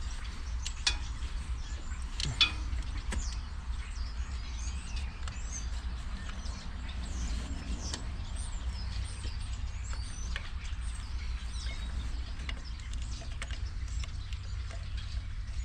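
Small birds chirping faintly and repeatedly over a steady low rumble, with two sharp clicks in the first few seconds.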